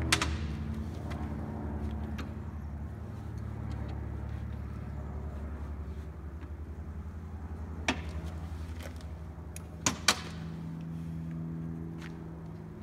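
Steady low mechanical hum with a few sharp metal clicks from handling the tooling of a drill-press setup used to cut a piston ring groove by hand. There is one click about eight seconds in and two close together about ten seconds in.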